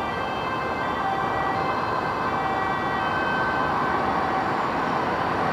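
Dutch ambulance on an urgent run, its two-tone siren alternating between a high and a low note over road noise, growing slightly louder as it approaches.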